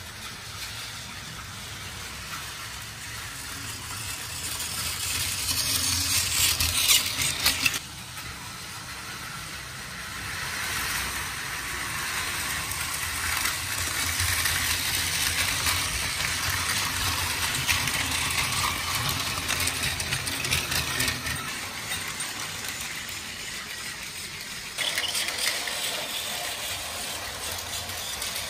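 Battery-powered toy trains running on plastic track: a steady motor whir with wheels rattling over the track joints, loudest around seven seconds in.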